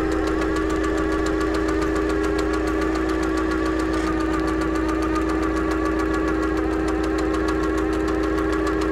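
Clockwork sound effect for an animated intro: a steady mechanical hum with rapid, even clicking throughout, in the manner of gears turning.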